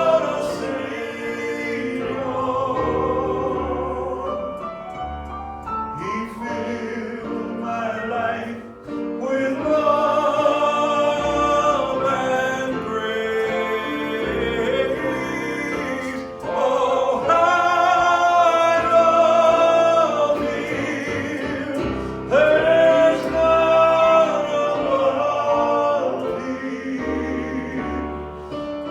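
Live gospel singing: several voices in harmony holding long, sustained notes over instrumental accompaniment.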